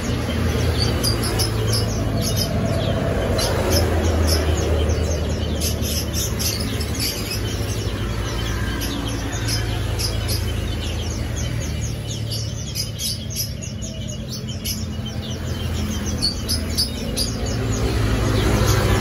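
Small birds chirping, many short high chirps repeated quickly throughout, over a steady low rumble.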